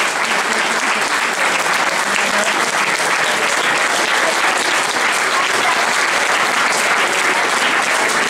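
Audience applauding steadily, dense clapping that goes on without a break.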